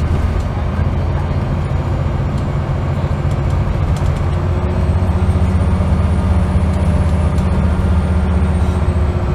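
Scania L94UB bus's nine-litre five-cylinder diesel engine pulling under way, heard inside the saloon over road noise. The engine note gets heavier about halfway through, with a faint high whine rising and then falling.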